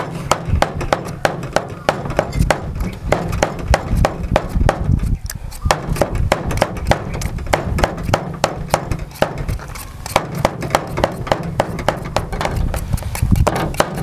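Meat cleaver chopping raw pork on a wooden chopping block: rapid, rhythmic chops at about four a second, with a couple of brief pauses.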